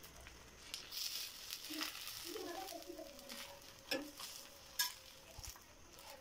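Egg frying in oil on a flat iron tawa, a faint sizzle that fades after about three and a half seconds, with a few sharp clicks about two, four and five seconds in.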